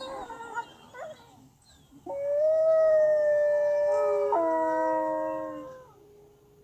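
Wolves howling: faint, wavering yips and whines for the first two seconds, then a long howl held at a nearly steady pitch, joined about four seconds in by a second, lower howl; both fade out about a second before the end.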